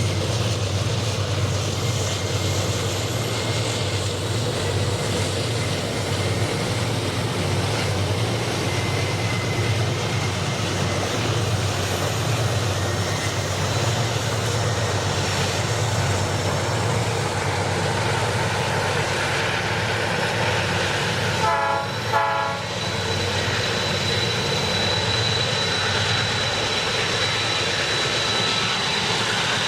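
Freight train running past with a steady low rumble. About two-thirds of the way through, the horn sounds two short toots, and a thin high steady squeal follows.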